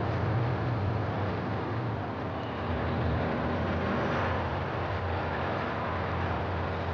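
Steady city outdoor ambience: a low rumble of traffic under an even hiss of background noise.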